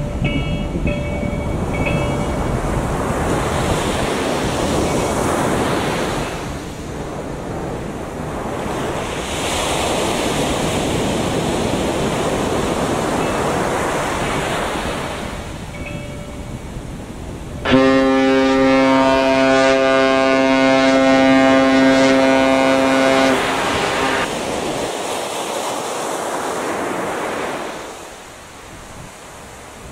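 Sea surf washing steadily, swelling and easing every few seconds. About two-thirds of the way through, a loud, deep ship's foghorn blast sounds for about six seconds and cuts off abruptly.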